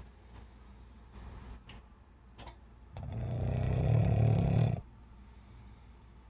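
Snoring: a quiet stretch of breathing, then one long snore starting about three seconds in. It lasts nearly two seconds and grows louder before cutting off.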